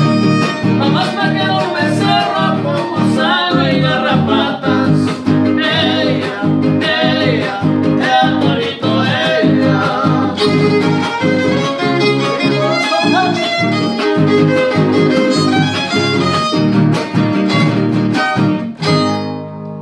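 Son huasteco trio playing: a fiddle melody over the brisk strummed rhythm of a jarana huasteca and a huapanguera. Near the end they stop on a final chord that rings out and fades.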